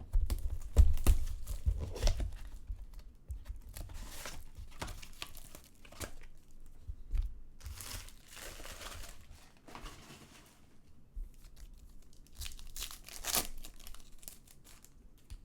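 Trading-card box and pack wrappers being torn open and crumpled, in a run of crackly rustles and tears with a few louder bursts.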